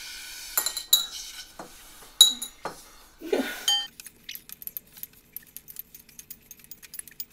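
Candy conversation hearts and drinking straws clinking against white ceramic bowls as the hearts are dropped from bowl to bowl. There are several bright, ringing clinks in the first few seconds, then a quicker run of light ticks.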